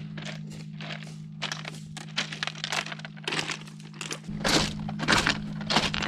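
Hiking footsteps crunching on a rocky, gravelly trail, about two steps a second, with light rustle of gear between steps.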